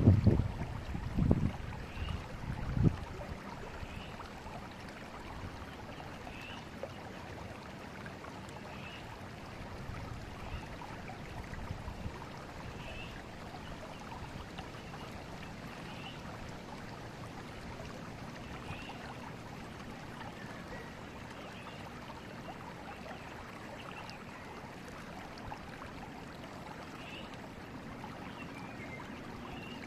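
Forest river flowing with a steady rush of water. In the first three seconds there are several loud low rumbling gusts, like wind on the microphone. Faint short high chirps repeat about every two seconds.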